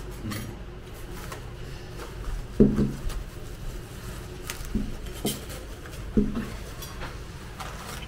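Dishes and cutlery clattering on a table: four dull knocks of crockery being set down or moved, the first and loudest about two and a half seconds in, among light clinks.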